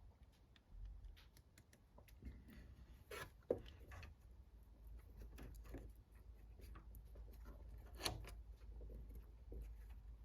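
Faint metallic clicks and scrapes of lathe change gears being handled, slid on and meshed together, with two sharper clicks about a third of the way in and near the end.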